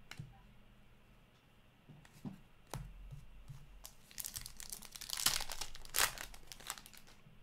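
Upper Deck hockey card pack's plastic wrapper being torn open and crinkled by hand, with a sharp click about three seconds in and the crinkling loudest in the second half.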